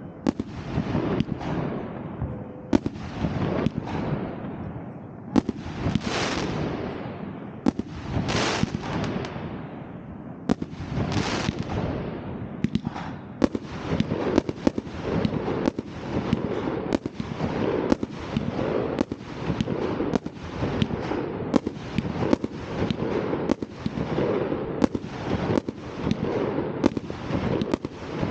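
Fireworks going off: a constant crackle and hiss with sharp bangs throughout, the bangs coming thicker and faster from about halfway through, several a second.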